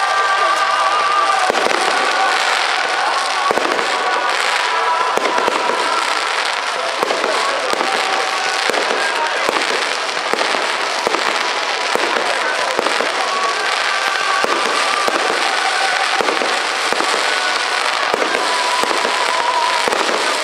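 Fireworks display: a dense, continuous barrage of crackling and popping from bursting shells, with frequent sharp bangs.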